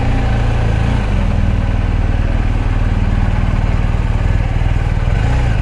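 BMW R1250 GS Adventure's boxer-twin engine running steadily while riding, a low continuous drone with a slight shift in pitch about a second in and again near the end.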